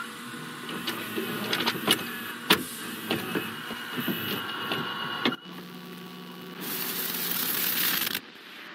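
Clicking and mechanical rattling of an old television set and video deck being switched on and worked, then a low hum and a burst of TV static hiss that cuts off suddenly near the end.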